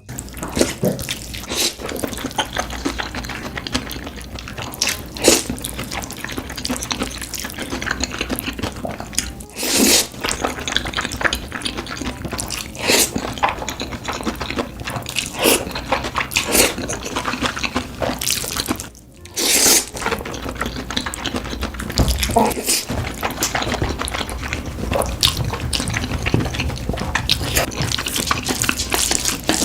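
Close-miked eating sounds: wet chewing and mouth noises with many short, sharp clicks, over a low steady hum.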